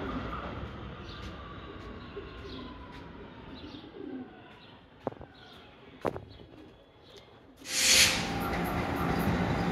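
Subway train running sound fading away with a faint falling whine, leaving pigeons cooing and small birds chirping, with two sharp clicks. About eight seconds in, a subway train's wheels and motors are suddenly loud as it runs past close by, then hold steady.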